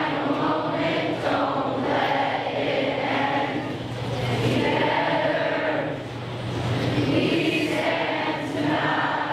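A large group of children and teenagers singing a camp alma mater song together as a choir, many voices in unison, with a brief break between phrases about six seconds in.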